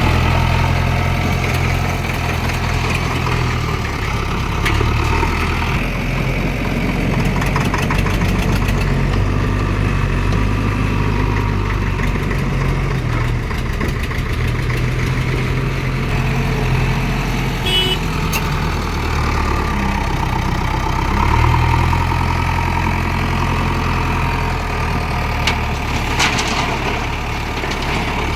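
JCB 3DX backhoe loader's diesel engine running under work, its engine speed stepping up and down several times, with a few short clicks.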